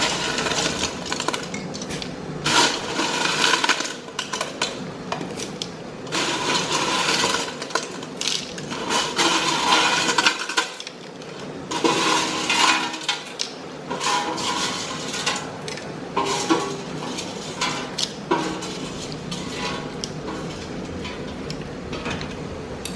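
Dry broken spaghetti being tipped into a large aluminium pot of broth, the hard sticks clattering and rattling against the pot in several bouts, with clinks of metal handling.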